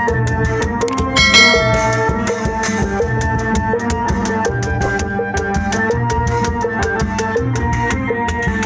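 Obrog street band music: an electronic keyboard melody over a fast, steady drum beat, with a bright ringing hit about a second in.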